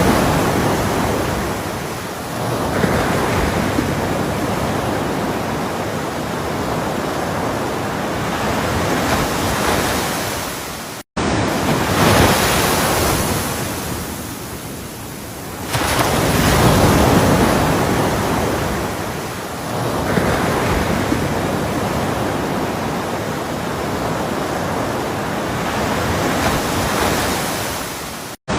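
Ocean surf: waves breaking and washing in as a continuous rushing noise that swells and ebbs every few seconds. The sound cuts out completely for a split second about eleven seconds in and again near the end.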